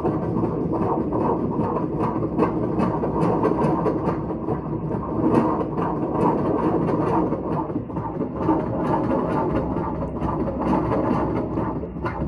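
Fetal heartbeat heard through an ultrasound machine's Doppler, played loud over room speakers: a rapid, rhythmic whooshing pulse.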